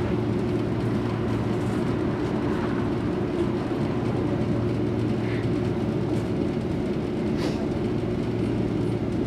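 Steady low hum of a 3500-series tram's onboard equipment, heard inside the cabin while the tram stands at a stop, with a couple of faint ticks.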